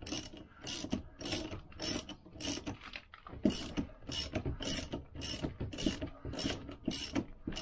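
Ratchet spanner clicking in quick repeated strokes, about three a second with a short pause about three seconds in, as it tightens the nut on a Lambretta layshaft puller tool.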